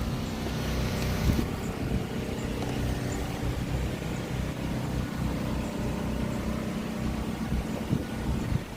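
A steady low mechanical hum, like a distant engine, with a couple of short knocks about a second and a half in and again near the end.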